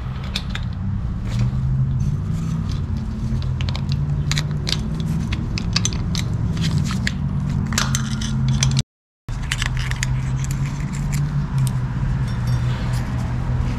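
Small metal clicks and scrapes as pieces of a broken snap ring in a 42RE transmission clutch pack are worked loose with hand tools, over a steady low hum. The sound cuts out completely for a moment about nine seconds in.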